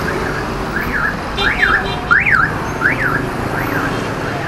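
An electronic alarm sounding a string of quick rising-and-falling whoops, about one and a half a second, loudest in the middle and fading toward the end, over the steady rumble of motorbike and car traffic.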